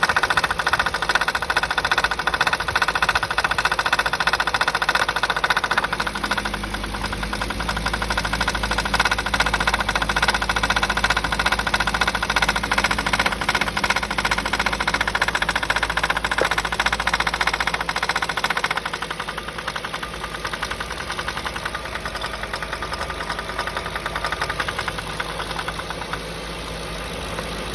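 Audi S4 B6's 4.2-litre V8 idling with a fast, even rattle from the valvetrain, heard through the open oil filler neck. About two-thirds of the way through the sound drops and becomes duller, as the oil filler cap goes back on.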